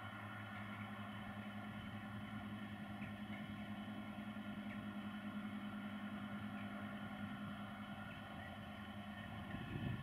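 Distant John Deere tractors ploughing, their diesel engines giving a steady pitched drone under load. A rougher low rumble swells near the end.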